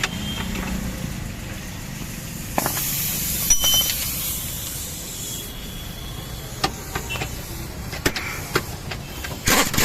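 Steady low vehicle rumble, with a hiss lasting about three seconds starting two and a half seconds in, and several sharp knocks spread through the rest.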